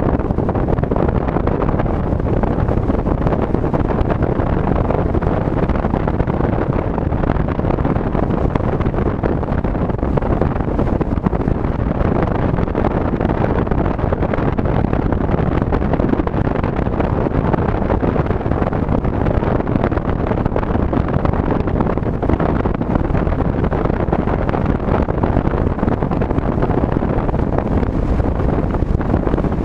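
Car driving steadily along a highway: even road and wind noise, heaviest in the low end, with no changes.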